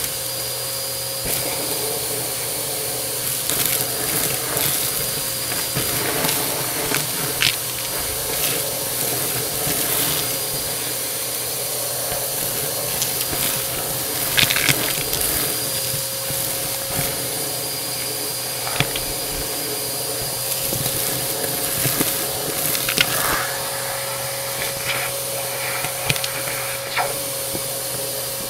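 Bissell AeroSwift vacuum cleaner running steadily, with scattered sharp clicks and crackles as debris is sucked up.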